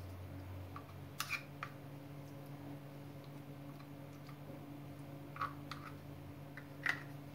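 Metal spoon clicking and scraping against a frying pan and a dry cannelloni tube as minced-meat filling is spooned into the pasta: a few short sharp clicks, the loudest near the end, over a steady low hum.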